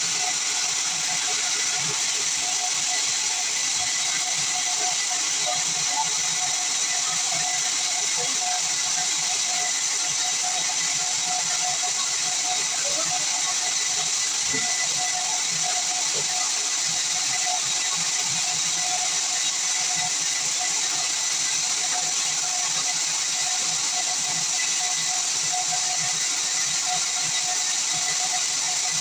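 Band sawmill running through pine, a steady high hiss with a thin steady whine underneath.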